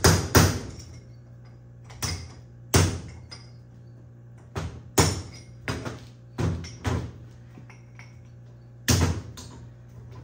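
Hand hammer striking a flat chisel driven under the leftover wheel-bearing race stuck on a BMW X3 wheel hub, about ten sharp, irregularly spaced blows, each ringing briefly. The race has been nicked with a cutoff wheel to relieve its grip and is being knocked off the hub.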